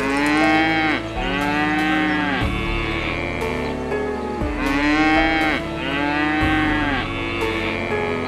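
An animal calling: several drawn-out calls, each about a second long, rising and then falling in pitch, over steady background music.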